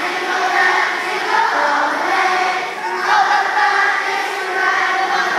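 A large children's choir singing, with several pitches held and sliding together.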